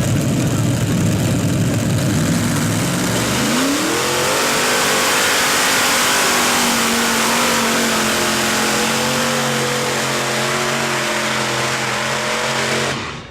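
Heavy modified pulling tractor's engine at full power during a pull: a low, heavy running sound, then about three and a half seconds in the pitch rises and holds high and steady. It cuts off abruptly near the end.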